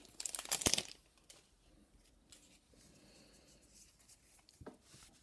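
Foil booster pack wrapper crinkling and tearing open for about the first second, then faint rustles and taps of cards being handled.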